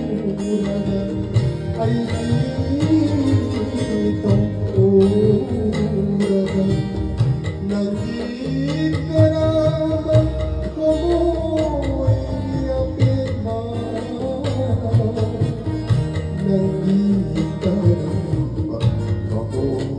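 Music: a singing voice over plucked string instruments and a steady percussive beat.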